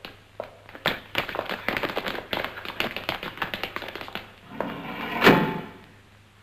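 Quick footsteps of shoes running on a wooden floor, heard as a rapid run of taps, then a loud thump about five seconds in.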